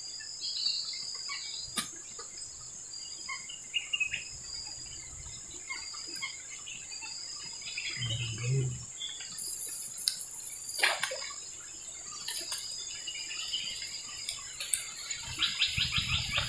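Steady high-pitched insect chorus with scattered bird chirps. A short low thud comes about eight seconds in, and a quick run of ticks near the end.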